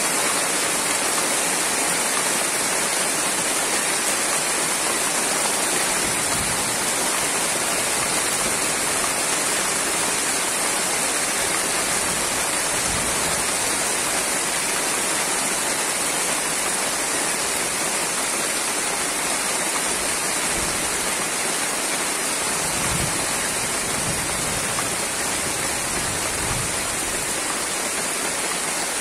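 Heavy tropical rain pouring steadily onto standing floodwater and leafy trees: an even, unbroken hiss.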